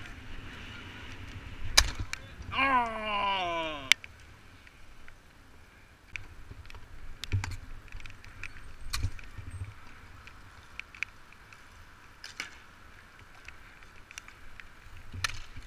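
Bike polo on an asphalt court: bicycles rolling with a steady low rumble, scattered sharp knocks of polo mallets on the ball and court, and a long falling shout of "Yes!" a couple of seconds in.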